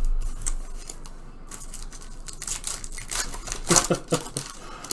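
Foil wrapper of a Panini Prizm trading-card pack crinkling while the cards are slid out and handled: irregular rustles and small clicks, busiest about three seconds in.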